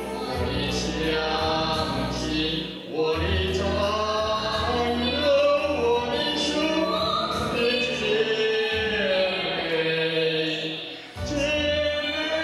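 A woman singing a Chinese ballad through a microphone over musical accompaniment, with short breaks between phrases.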